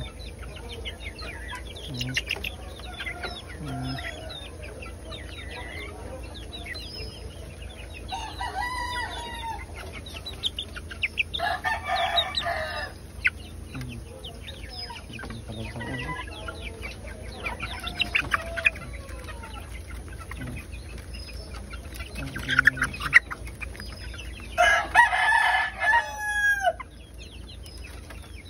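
Chickens clucking while pecking grain from a bare hand, the pecks clicking. Three longer, louder calls stand out, the loudest near the end.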